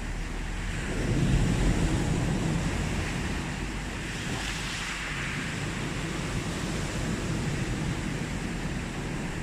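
Sea waves washing onto a beach: a steady surf wash that swells about a second in, with a brighter hiss of spreading water around four to five seconds in.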